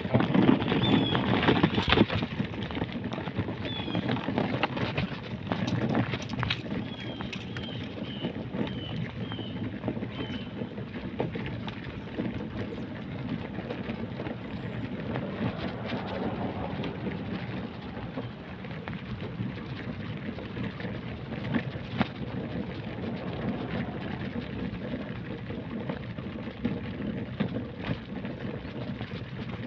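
Footsteps of a person walking on pavement, with a steady rustle and rumble from a hand-held phone's microphone, loudest in the first couple of seconds. A few short, high chirps come in the first ten seconds.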